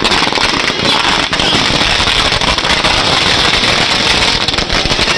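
A string of firecrackers going off in a rapid, continuous crackle of many small bangs.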